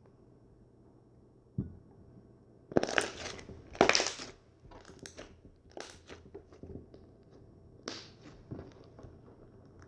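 Potato masher pressing into slime: a low thump about one and a half seconds in, then two loud presses around three and four seconds in, followed by several softer, irregular presses.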